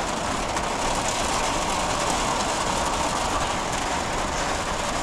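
Heavy downpour rain beating on the tent roof overhead: a loud, even, unbroken rushing.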